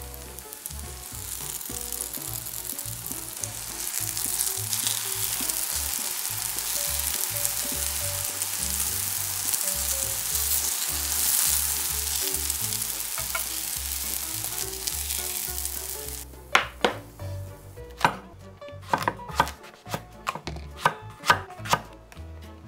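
Enoki mushroom pancakes sizzling steadily as they fry in a pan of oil. About sixteen seconds in, the sizzle gives way to a chef's knife cutting king oyster mushroom on an end-grain wooden cutting board: a dozen or so sharp knocks in an uneven rhythm.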